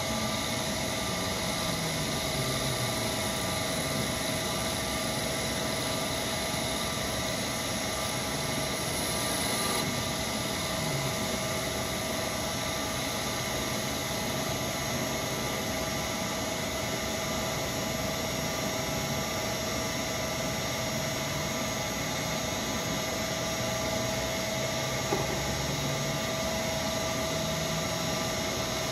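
Shopmaster Mill Turn, converted to CNC, running as a lathe through a dry turning pass with no coolant. The spindle runs with a steady whine and several fixed tones, while the axis servo drives move the tool, heard as short low rising and falling tones. One sharp click about 25 seconds in.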